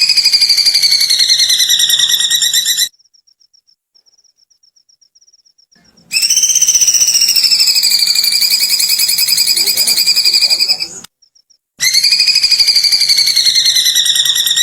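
A bird giving long, rapid, rattling giggle-like calls, each held two to five seconds and wavering slightly in pitch, in three bouts. A faint fast ticking is heard between the first two bouts.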